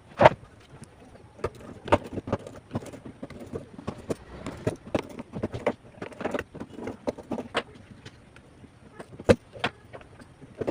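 Handling noise from a smartphone: irregular sharp taps and clicks with some rustling, the loudest clicks just after the start and about nine seconds in.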